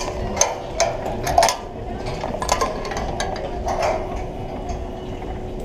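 Scattered metallic clicks and clinks of ropes-course safety gear as a climber moves along the course, over a steady low rumble of wind.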